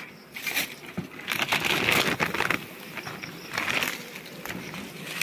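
Footsteps crunching through dry leaf litter, in a run of irregular crackling steps.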